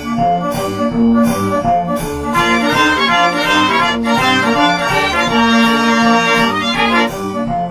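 Upbeat instrumental background music with a steady beat and held accordion-like melody notes.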